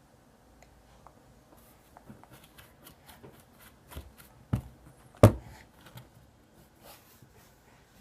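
Light scattered taps and rustling handling sounds, with two louder knocks a little past the middle.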